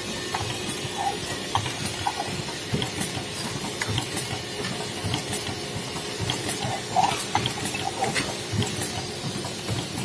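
Steady hiss of machinery on a perfume bottle crimping and packing line, with scattered light clicks and clinks as glass bottles and machine parts are handled; the sharpest clink comes about seven seconds in.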